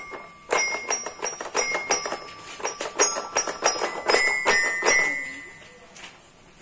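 Toy xylophone with coloured metal bars being banged by a small child: quick, uneven strikes, each ringing with a high bell-like tone. The strikes stop about five seconds in and the ringing dies away.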